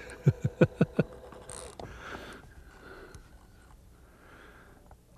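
A quick run of five sharp, evenly spaced thumps within about a second, then faint low noise.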